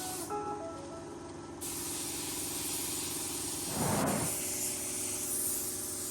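Compressed-air paint spray gun hissing steadily as paint is sprayed, with a brief louder rush about four seconds in.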